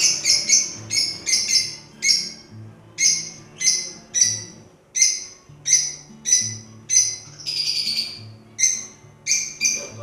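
Lovebirds calling: a steady run of loud, sharp, high chirps, about two a second, with one longer, noisier call a little after the middle.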